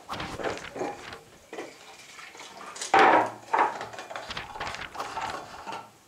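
Clatter and knocks of a can being taken down and handled on a wooden workbench: a run of separate knocks, the loudest about halfway through.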